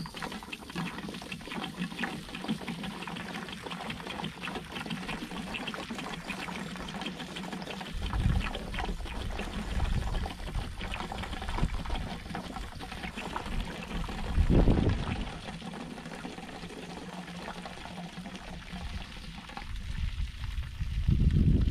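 Water pouring in a steady stream out of a 5-gallon fuel can, modified with a larger opening and a big vent, and splashing onto dry grass. A few low rumbles come now and then.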